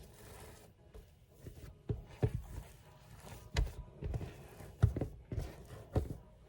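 Several uneven, dull thumps and soft knocks of hands pressing and shaping sourdough dough on a countertop.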